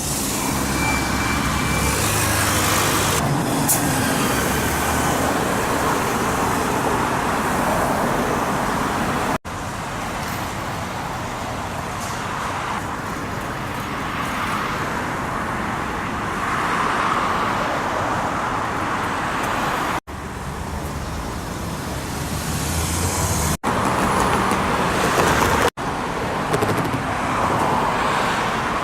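Road traffic at a busy city intersection: a steady wash of engine and tyre noise from passing vehicles. The sound breaks off abruptly for an instant a few times.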